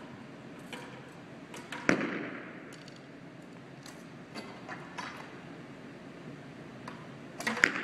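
Archery bows shooting arrows: a sharp crack about two seconds in and a quick cluster of cracks near the end, each followed by a short gymnasium echo, with a few faint clicks between.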